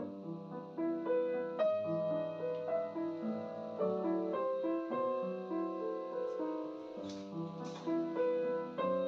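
Solo piano music with held notes moving at an unhurried pace.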